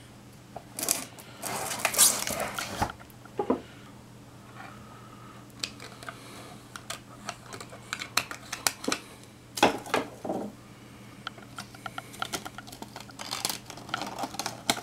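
A screwdriver and hands working at a diecast model car and its plastic display base and packaging: irregular scraping and crinkling with scattered clicks and taps, the longest stretch of scraping about two seconds in and another burst near the middle.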